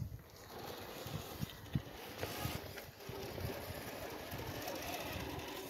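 Scale RC rock crawler (Axial SCX10 with a Hobbywing Fusion Pro brushless motor) climbing over loose rock: irregular knocks and crunches of the tires and chassis on stones, with a faint electric motor and gear whir that becomes steadier in the second half.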